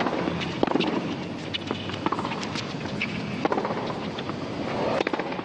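Tennis point on a hard court: sharp racket strikes on the ball and ball bounces in an irregular rally rhythm, with a few short shoe squeaks, over steady background crowd noise.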